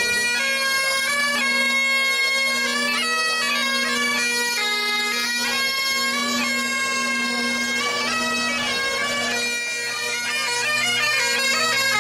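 Highland-style bagpipes playing a tune: a steady drone under a stepping chanter melody, with a lower drone note coming in near the end.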